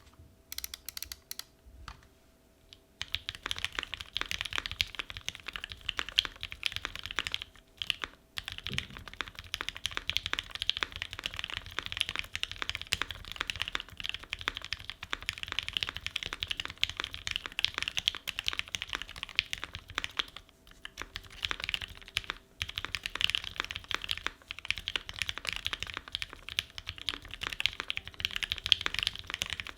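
Typing on an ai03 Vega custom mechanical keyboard with an aluminium plate, Gateron Ink Black V1 linear switches (lubed and filmed) and GMK keycaps. A few scattered keystrokes come first, then about three seconds in a fast, continuous run of key clacks begins, broken by a few short pauses.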